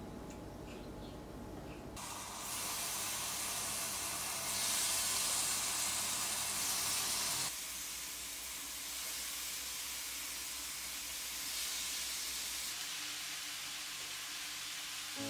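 Chicken pieces sizzling on a hot grill pan, an even hiss that starts about two seconds in and is loudest for a few seconds in the middle.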